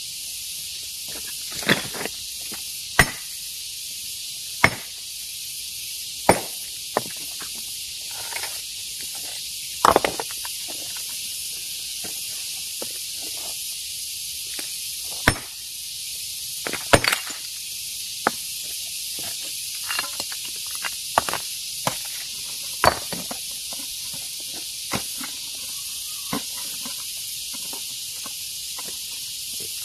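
Hammer striking rock by hand, irregular sharp blows a second or few apart, some heavy and some light, over a steady high hiss.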